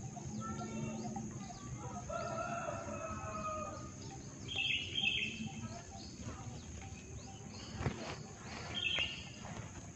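Birds calling: a drawn-out crowing call in the first few seconds, then short high chirps, with one sharp click about eight seconds in.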